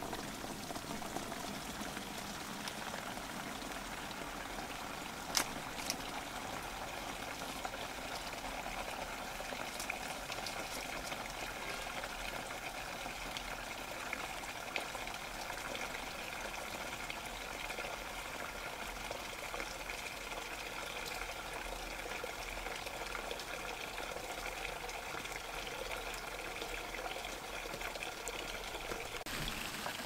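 Faint steady hiss of running water, with a single sharp click about five seconds in.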